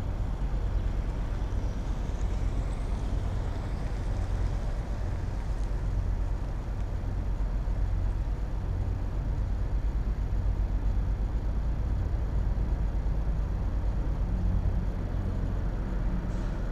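Steady low vehicle engine rumble of idling traffic.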